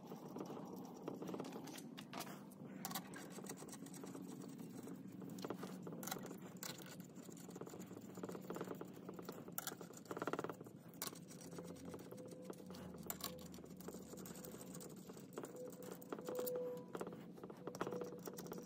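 Faint irregular clicks and scrapes of steel ring gear bolts being picked up and threaded by hand into a ring gear on a differential carrier.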